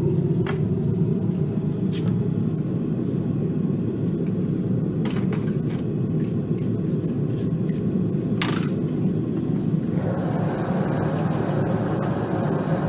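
Forge running with a steady low rumble while a fluxed horseshoe weld heats in it, with a few sharp clicks; the sound gets brighter about ten seconds in.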